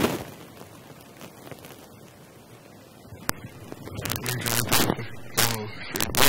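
A man stretching and yawning in an armchair. For the first three seconds there is little but room tone; then, about four seconds in, rustles and knocks of clothing against a clip-on microphone, with a short voiced yawn.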